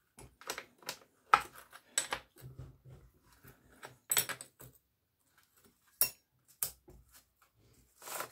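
A string of irregular metal clicks and light rattles as a Stihl MS230 chainsaw's chain is slackened off with a hand tool, after being set too tight. The sounds are the tool knocking on the bar nuts and tensioning screw, and the chain clinking on the guide bar.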